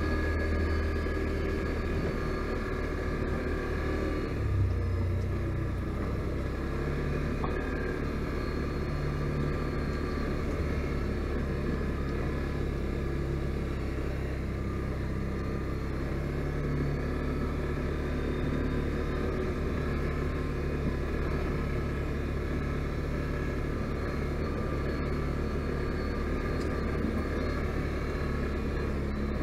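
Can-Am Outlander 570 ATV's V-twin engine running steadily under way, its note changing about four to five seconds in.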